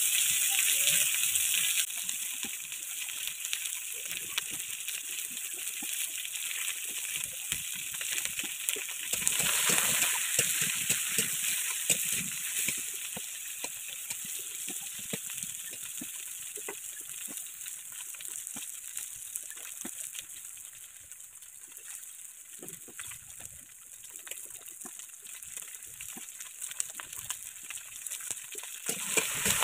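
Chopped vegetables, eggplant among them, frying in hot oil in a large wok (kadai): a steady sizzle with scattered scrapes and taps of a metal spatula as they are stirred to brown. The sizzle grows louder about a third of the way in and again near the end.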